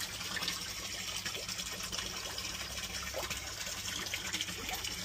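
Steady rush of water pouring into a koi pond, with light splashing from koi feeding at the surface.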